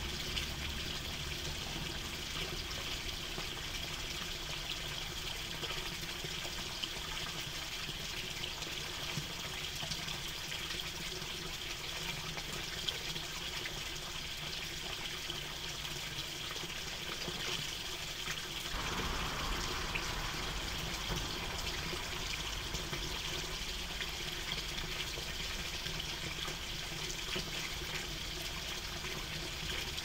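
Stream water trickling and flowing steadily, growing slightly fuller about two-thirds of the way through.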